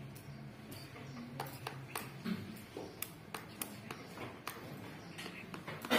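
Scattered light clicks and taps, about a dozen in a few seconds, from gloved hands tying and adjusting cloth bandages on a board splint laid along a leg.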